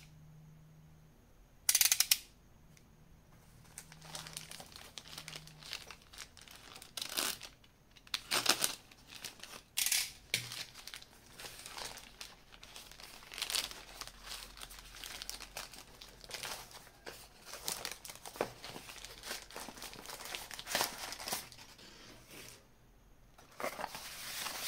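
A utility knife slits a plastic courier mailer with one short, loud rasp about two seconds in. Then the plastic bag is torn and crinkled by hand in irregular rustling strokes as a cardboard box is pulled out of it.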